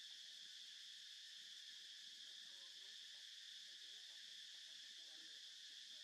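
Faint, steady, high-pitched chorus of insects.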